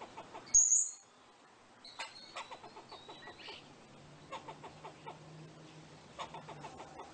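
Squirrel calls: a sharp, high squeak about half a second in, then a string of short clicking chucks, with a thin high whistle a couple of seconds in.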